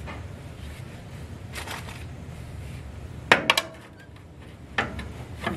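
A few sharp metallic clinks, a quick cluster of three a little past halfway and one more near the end, over a low steady hum.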